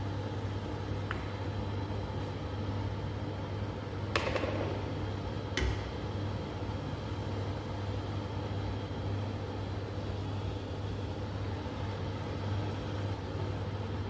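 Chicken adobo boiling in a saucepan on a gas burner, a steady low hum, while the foam is skimmed off the top with a spoon. The spoon knocks sharply against the pan twice, about four and five and a half seconds in.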